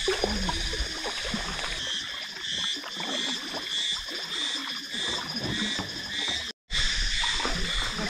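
High, steady chorus of calling animals in the mangrove, pulsing about twice a second. It drops out suddenly for a moment near the end.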